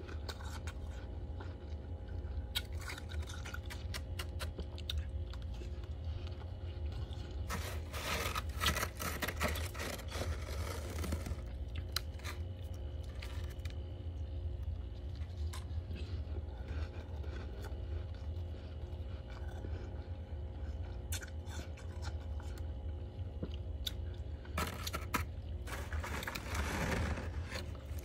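Crunching of freezer frost as it is scraped up by hand and eaten, in two spells of a few seconds each, about a third of the way in and near the end, with scattered lighter crackles between. A steady low hum runs underneath.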